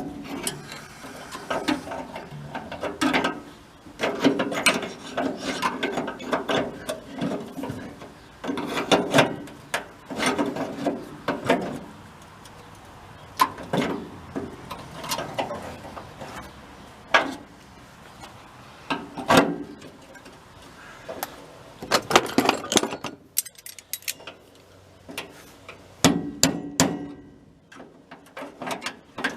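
Hand tools working on the steel door-hinge mounting of a VW bus, with irregular knocks, taps and scraping of metal on metal.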